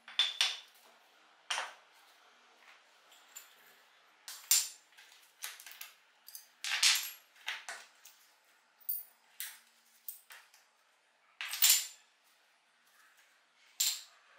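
Small metal parts of a disassembled pneumatic nailer clinking and scraping against each other and the workbench as they are picked up by hand: about a dozen sharp clinks at uneven intervals.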